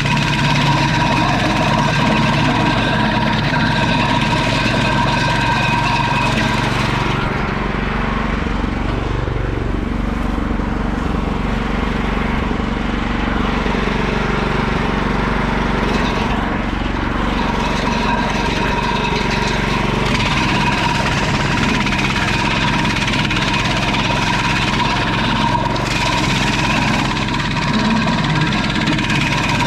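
Petrol engine of a wood chipper running steadily at high speed. For a stretch in the middle its note drops and wavers, as it slows under the load of chipping, then it picks back up to its steady note.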